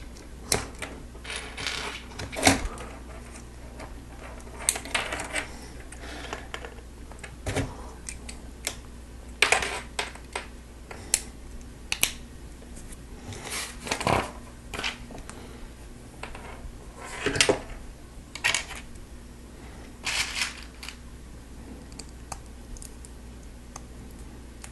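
Lego Technic plastic pins and parts handled and pressed together by hand: irregular sharp clicks and short rattles, over a steady low hum.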